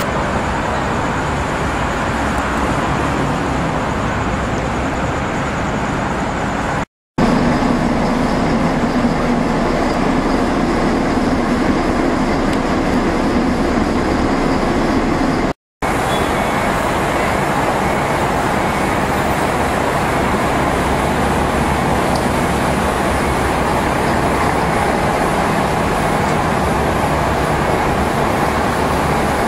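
Volvo B10M single-deck bus's mid-underfloor diesel engine running, with road and traffic noise, in three clips joined by two brief cuts to silence, about seven seconds in and again about sixteen seconds in. The middle stretch carries a steadier, low engine drone.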